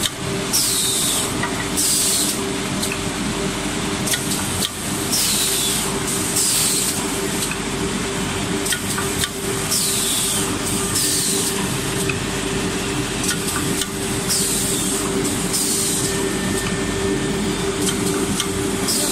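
Automatic pine-panel drilling and dowel-inserting machine running: a steady motor hum with a constant tone, broken about every four to five seconds by a pair of sharp pneumatic air-release hisses that fall in pitch as the air cylinders cycle, with scattered clicks and knocks.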